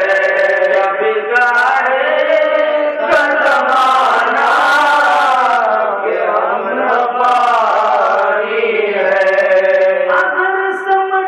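A man's voice chanting a Sufi devotional recitation in a melodic, sing-song line, with long held notes that slide up and down in pitch.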